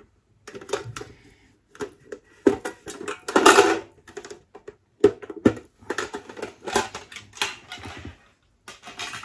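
Makeup products and their packaging being handled: a run of small clicks and taps, with a longer burst of rustling about three and a half seconds in.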